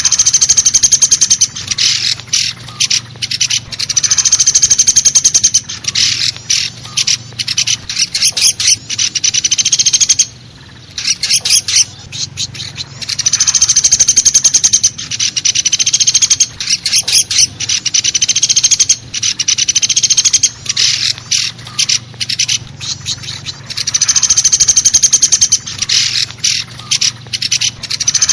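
Pelatuk besi woodpecker calling in loud, rapid rattling series, each about one and a half to two seconds long, with scattered single sharp notes between them and a short pause about ten seconds in. A bird-lure recording.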